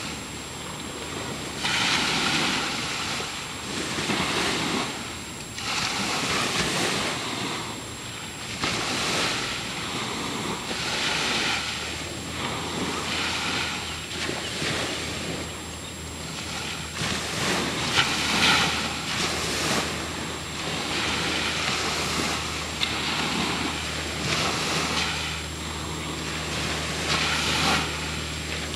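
Ocean water washing and sloshing, rising and falling every couple of seconds, with wind buffeting the microphone. A low steady hum comes in about twelve seconds in.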